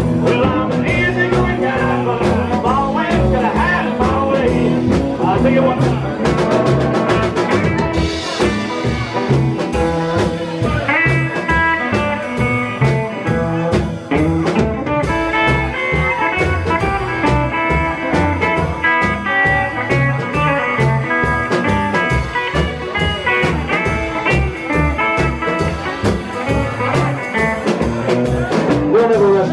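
Live rock and roll band playing an instrumental break: a Telecaster-style electric guitar plays lead lines over a steady drum beat and rhythm guitar.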